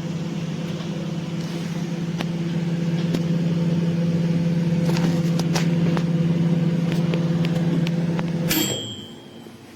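Orbegozo MI 2115 700 W microwave oven running with a steady hum and scattered light clicks. The hum stops about eight and a half seconds in with a click and a short ringing tone, the end-of-cycle bell of its timer.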